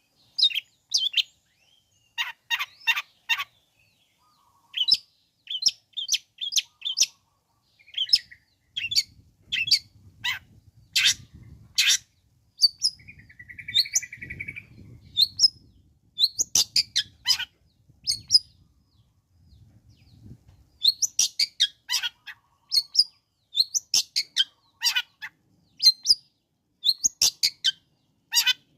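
Long-tailed shrike (cendet) singing: bursts of quick, sharp chattering notes with short pauses, and a single buzzy note about halfway through.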